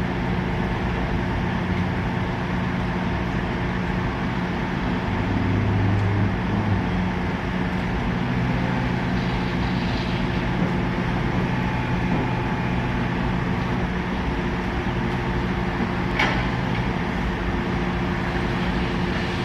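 Heavy construction machinery running steadily, an engine drone with a constant hum, and one sharp knock about three-quarters of the way through.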